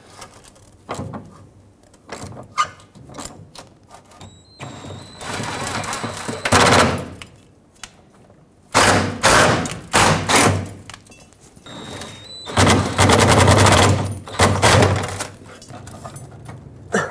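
Cordless impact wrench hammering in three long bursts, two of them starting with a short high whine, on a rusted fuel tank strap mounting bolt whose captive J-nut has broken loose inside the frame, so the bolt spins. Scattered metal knocks from the pry bar and tools come before the first burst.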